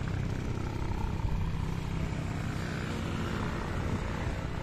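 Massey Ferguson 35 tractor engine idling steadily.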